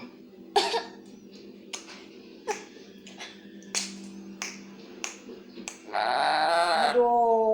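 Black-capped lory making a series of sharp clicks, roughly one every two-thirds of a second. Near the end it gives a loud harsh squawk, followed by a short pitched call that falls away.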